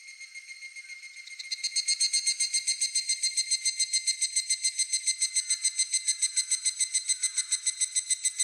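A higurashi (evening cicada) starts calling about a second and a half in, a fast, even pulsing of about eight beats a second. Under it runs a steady, high-pitched insect drone.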